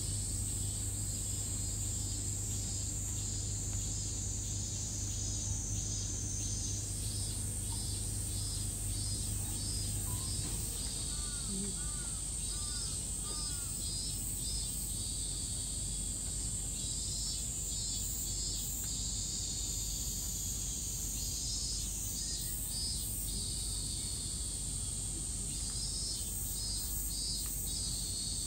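Cicadas shrilling: a steady high buzz with repeated pulsing calls over it. A low hum underneath stops about ten seconds in.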